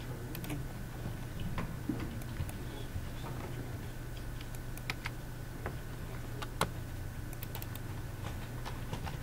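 Irregular clicks of computer mice and keyboard keys, some in quick pairs, over a steady low hum of room and computer noise.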